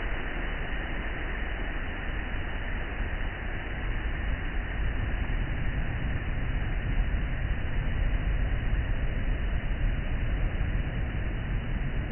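Sea waves washing in, a steady rushing noise with a deep rumble, swelling a little about halfway through.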